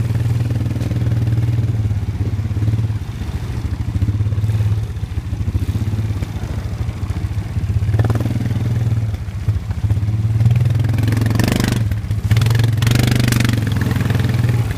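Small 110cc ATV engine running steadily at low trail speed, a low drone throughout. Louder bursts of rushing noise come about halfway through and again near the end.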